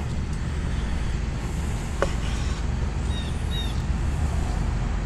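Steady low outdoor rumble, with a single sharp tap of a knife against a wooden cutting board about two seconds in. Two short, high bird chirps follow a little over a second later.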